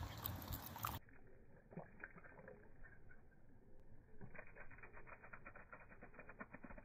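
A small dog lapping water from a portable pet water bottle: a fast, even run of short wet laps, several a second, through the second half. A louder rustle of handling comes in the first second.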